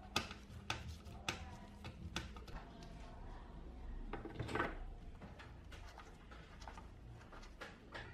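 Light clicks and taps of a screwdriver and small plastic and metal parts being fitted into a speaker's plastic case, a few sharp strikes about half a second to a second apart, a short scraping sound about four and a half seconds in, then smaller ticks.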